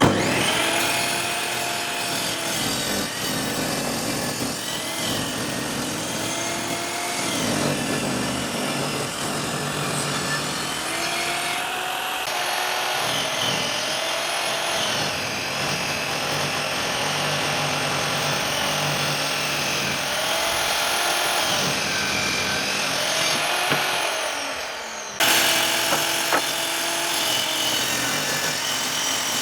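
A power tool working wood, its motor whine dipping in pitch and recovering again and again as it bites into the wood. The sound changes abruptly about 25 seconds in.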